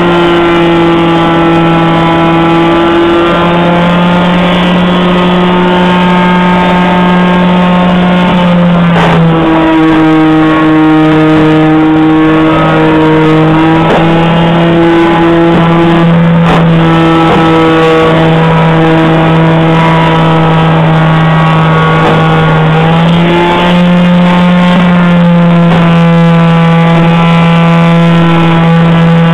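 Electric orbital sheet sander running continuously on bare wood, a loud steady hum. Its pitch shifts slightly about nine seconds in and again near twenty-three seconds.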